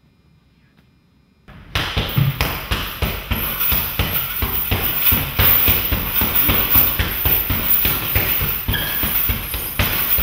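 Near silence, then about two seconds in a sudden start of loud music with a busy drum beat.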